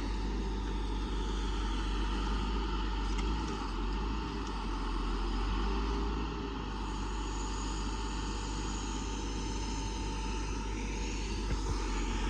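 Self-loading logging truck's Cummins diesel engine running steadily, driving the truck-mounted loader's hydraulics while logs are unloaded.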